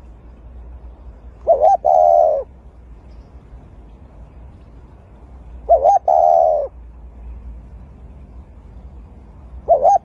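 Spotted dove cooing: a short note followed by a longer drawn-out coo, given twice about four seconds apart, with a third phrase starting near the end.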